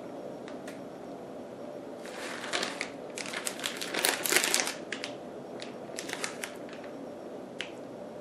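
Plastic bag of shredded cheese crinkling as it is shaken and squeezed. The crinkling comes in dense bursts starting about two seconds in, then thins to scattered crackles.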